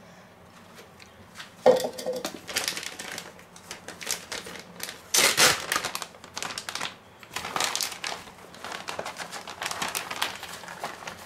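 Plastic bag of grated cheese crinkling and rustling as it is handled, in uneven bursts, loudest about two seconds in and again near the middle.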